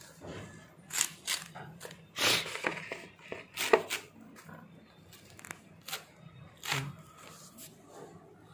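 Water spinach (kolmi shak) stems being chopped with a blade: irregular crisp cuts, several over a few seconds, each short and sharp.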